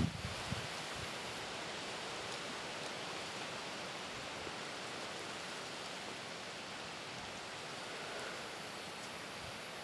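Wind rushing through trees and foliage, making a steady, even hiss, with a brief low buffet of wind on the microphone about half a second in.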